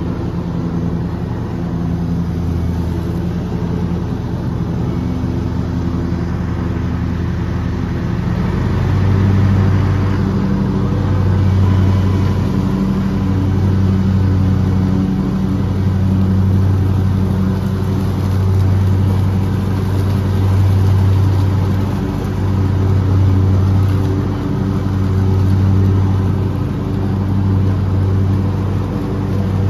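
Small gasoline engine of a walk-behind lawn mower running steadily under load. About a third of the way in, a deeper hum comes in and swells and fades every two seconds or so.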